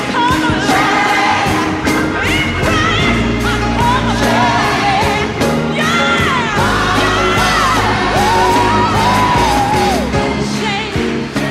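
Gospel song: a solo voice sings long lines that bend and slide in pitch over a band with held bass notes and a steady drum beat.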